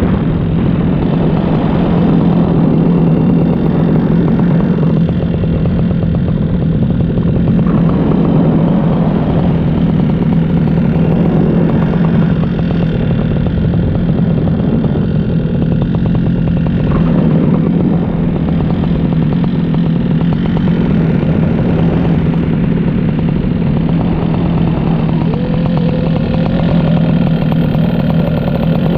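Paramotor engine and propeller running steadily in flight, a loud, constant drone.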